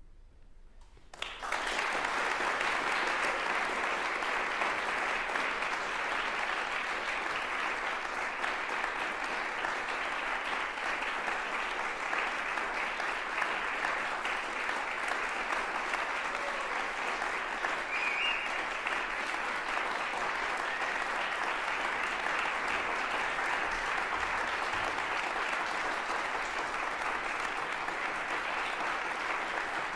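Audience applause breaking out suddenly about a second in and then holding steady.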